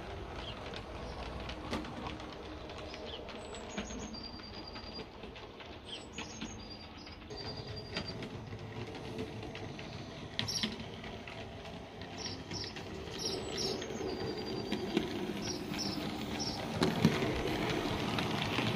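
00 gauge model train running on the layout's track, a steady mechanical running noise with scattered clicks, getting louder near the end as a coach passes close by. Small birds chirp and whistle in the background throughout.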